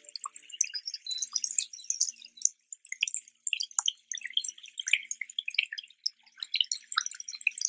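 Water dripping: a dense, irregular patter of short, high-pitched plinks.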